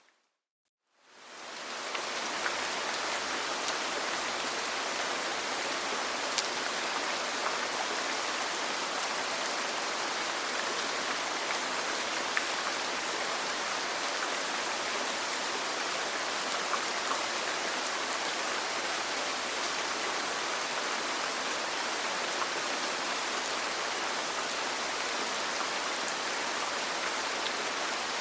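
Steady rain ambience: an even hiss of falling rain with scattered light drop ticks. It fades in after a moment of silence near the start and fades out at the end.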